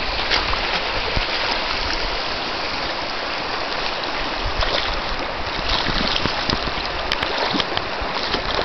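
A husky wading through shallow water, a steady sloshing and splashing with short sharper splashes as its muzzle hits the surface. Low wind rumble on the microphone underneath.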